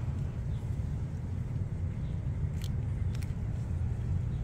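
Steady low background rumble, with a few faint clicks of a cat licking meat paste from a squeeze-tube treat.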